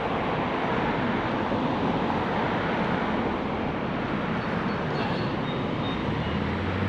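Steady rushing noise: traffic on a busy road mixed with a strong creek current. A deeper low hum swells near the end.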